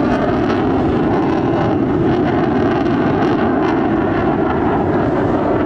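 Steady, loud jet noise from an F-15C Eagle's twin Pratt & Whitney F100 turbofan engines as the fighter flies by.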